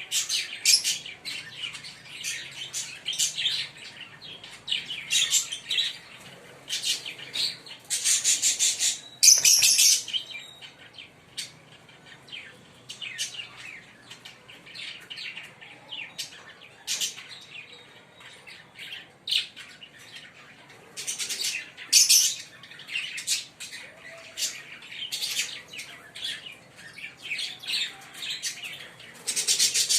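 A pair of green Fischer's lovebirds chirping and chattering in rapid, high-pitched calls. There are louder, shriller bursts about a third of the way in, a little past two-thirds, and again at the end.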